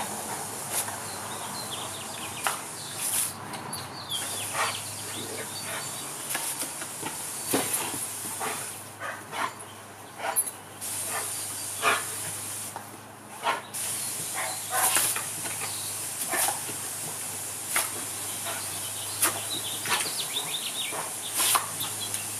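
Garden hose spraying a jet of water with a steady hiss that cuts out briefly three times, while a German Shepherd snaps and bites at the spray, giving many short sharp snaps and splashes.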